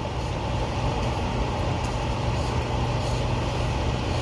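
Steady low mechanical rumble and hum, even throughout, with no distinct events.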